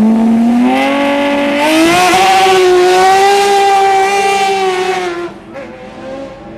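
Hillclimb race car engine accelerating hard, its pitch rising over the first two seconds and then held at high revs. The sound drops away sharply about five seconds in as the car moves off.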